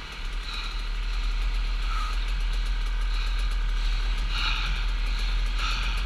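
Enduro dirt bike engine running while riding a muddy trail, over a heavy low rumble, the engine note swelling and easing with the throttle.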